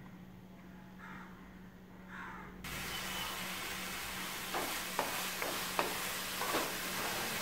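Wooden spatula stirring and scraping thick beetroot halwa in a nonstick frying pan, with a soft sizzle as it cooks down with its liquid boiled off. The sizzle and scrapes come in suddenly about two and a half seconds in, after a quieter start.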